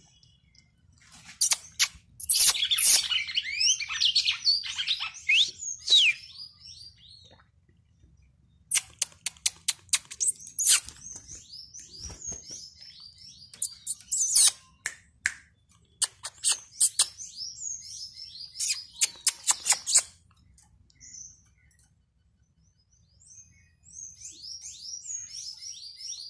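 A Paroaria cardinal singing: several bouts of fast, high, sliding notes with sharp clicks mixed in, separated by short pauses, the longest about three-quarters of the way through.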